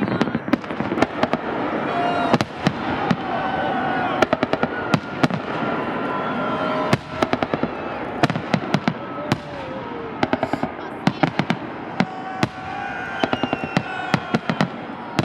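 Fireworks bursting in quick clusters of sharp cracks and pops, a new salvo every couple of seconds, over a steady background rumble.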